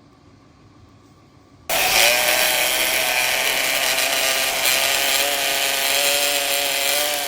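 A power tool cutting wood, which starts abruptly about two seconds in: a steady motor whine under loud cutting noise.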